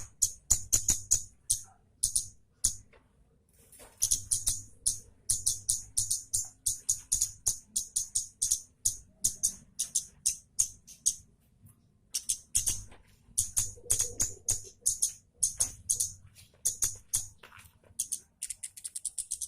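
Kemade (baret merah) bird giving a sharp, rapid, high-pitched chattering song ('nyecret tajam'), in long runs of quick notes that break off briefly about three seconds in and again near the twelve-second mark.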